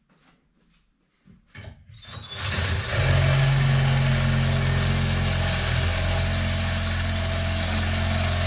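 Cordless drill boring a hole into a metal rod, starting about two seconds in and then running steadily under load.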